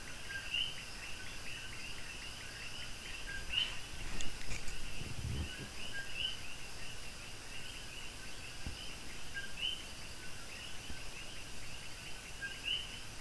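Steady background chirping: short high chirps repeating several times a second, from a bird or insect. A soft low bump comes about five seconds in.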